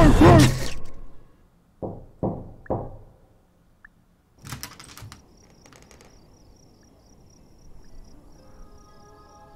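A wavering scream cuts off within the first second, then three knocks about half a second apart, like knocking on a door. After a brief clatter, a faint high pulsing chirp continues, and soft sustained music comes in near the end.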